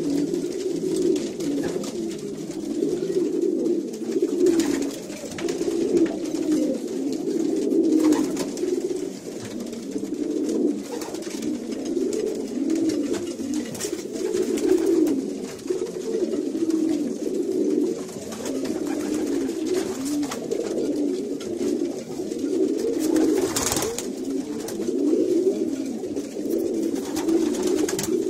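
A loft full of domestic pigeons cooing, many low coos overlapping without a break, typical of cocks courting in their nest boxes at pairing time. A few short sharp sounds cut through, the loudest about three-quarters of the way through.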